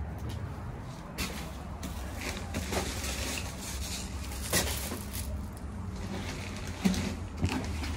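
Footsteps on a concrete walk, then the rustle and light knock of a plastic carry-out bag being set down on a doormat, over a low steady rumble.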